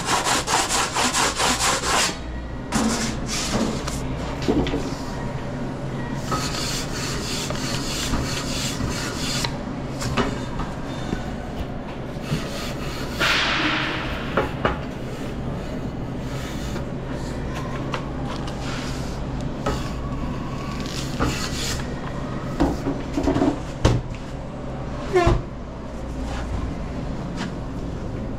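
Pizza-kitchen work noise: fast rhythmic scraping against wood for about the first two seconds, then scattered rubs, scrapes and knocks over a steady low hum, with a few sharp knocks near the end.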